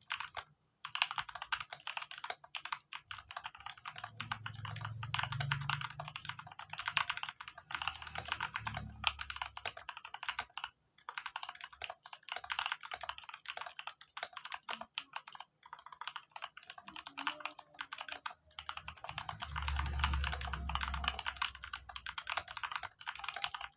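Typing on a mechanical keyboard with tactile Outemu Purple 62g switches lubed with Krytox 205g0, in a steel plate with PBT keycaps: runs of keystrokes lasting a few seconds, broken by brief pauses.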